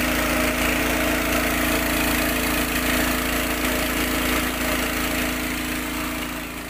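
Small petrol engine of a portable water pump running steadily, its centrifugal pump fitted with a home-modified impeller, with a hiss of water gushing hard from the outlet and splashing into the river.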